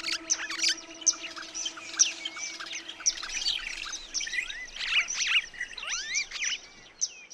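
A dense chorus of many birds chirping and whistling, with rapid overlapping calls and some whistles that slide up and down in pitch.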